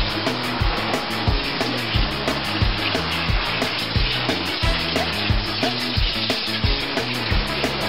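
Steady hiss of water spraying up inside a wine barrel from a barrel washer's oscillating wash wands, pouring back out of the bung hole, under background music with a steady beat.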